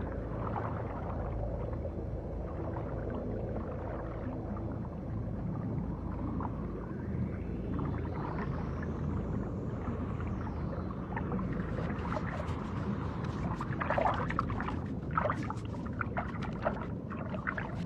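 Underwater ambience: a steady low rumble. A faint tone rises and falls around the middle, and scattered sharp clicks and crackles come in during the second half.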